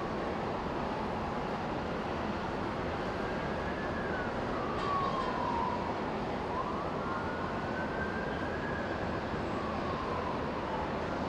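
Emergency-vehicle siren wailing faintly, its pitch sliding slowly up and down about twice, over a steady rush of street noise.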